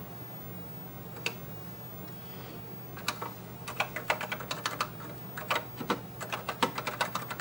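Keystrokes on the Intel iPDS-100's built-in keyboard: a single key press about a second in, then a quick run of typing from about three seconds in. A steady low hum runs underneath.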